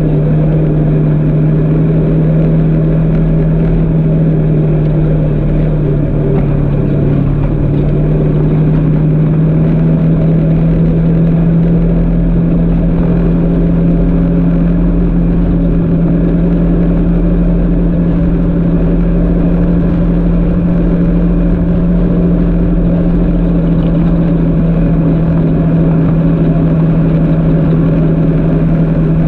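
Engine of an off-road vehicle running at a steady pace along a sandy trail, a constant loud drone with low rumble underneath.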